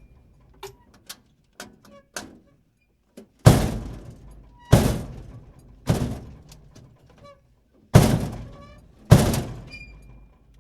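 Trash can lid banging shut five times, each bang sharp with a decay of about a second. A few light clicks and knocks come in the first couple of seconds before the bangs.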